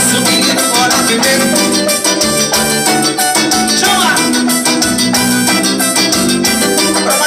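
Live band music, keyboard and percussion playing a steady dance beat.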